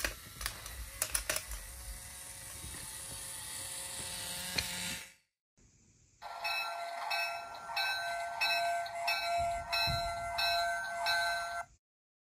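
Hape Bluetooth toy bullet train's small electric motor running, with its wheels clicking over the joints of wooden track, stopping about five seconds in. Soon after comes an electronic bell-like sound effect from the toy's speaker, a fixed set of tones pulsing about twice a second, which cuts off near the end.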